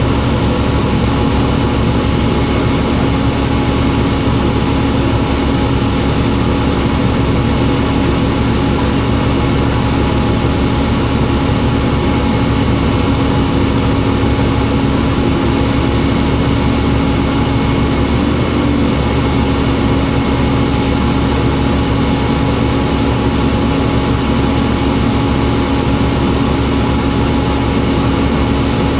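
Cummins ISL diesel engine of a New Flyer D40LF transit bus idling while the bus stands still, heard inside the passenger cabin as an even drone with a constant hum.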